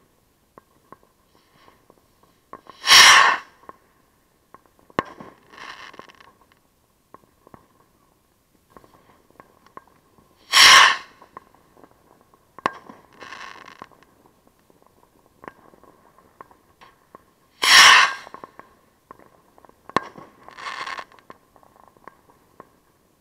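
Three fireworks launched right beside the microphone, evenly spaced, each one a loud, short whoosh. About two seconds after each launch comes a sharp pop, then a softer, noisy spell of about a second as the firework bursts overhead.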